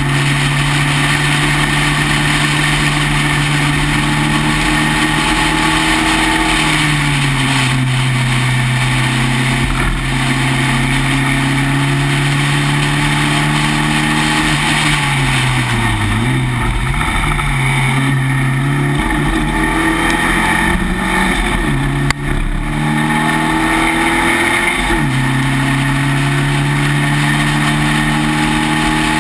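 Spec Racer Ford's four-cylinder engine running at racing revs, heard from the open cockpit over a steady rush of wind. Its pitch drops about a quarter of the way in, dips and wavers around the middle, and climbs again near the end as the driver shifts and brakes through the corners.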